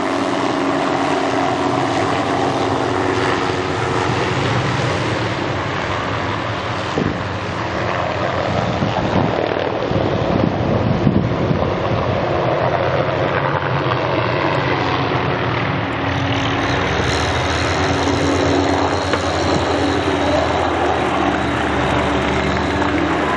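Small helicopter in flight carrying a lime-spreader bucket on a sling, its rotor and engine running steadily. The rotor chop pulses through the middle, and after about 16 seconds a high whine joins with a stronger low beat as it works over the trees spreading lime.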